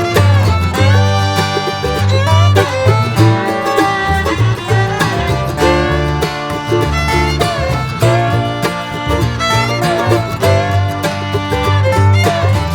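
Bluegrass-style string-band music: a fiddle playing over guitar and banjo, with a rhythmic bass.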